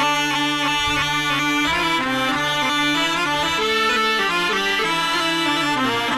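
Roland XPS-60 keyboard playing its been (snake charmer's pipe) tone: a reedy melody moving in short stepping notes over a held drone note.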